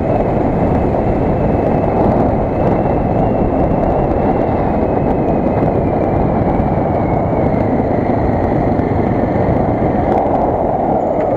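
Suzuki DR 600 single-cylinder four-stroke motorcycle riding at a steady road speed, its engine mixed into a loud, even rush of wind and road noise. A faint high whine sinks a little in pitch past the middle.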